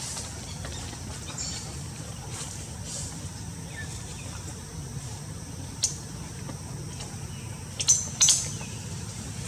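Outdoor ambience: a steady low hum with a few short, high-pitched chirps, the loudest about six seconds in and a close pair about eight seconds in.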